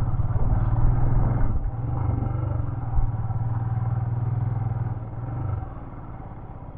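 Motorcycle engine pulling steadily up a climbing hill road, its steady hum easing off and quietening about five and a half seconds in.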